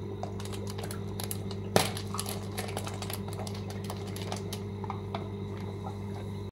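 Electric aquarium air pump humming steadily, with light crackling and clicking from a plastic fish bag being handled as its knot is worked open; one sharper click a little under two seconds in.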